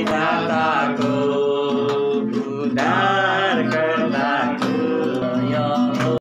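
A song playing: a voice singing over instrumental accompaniment.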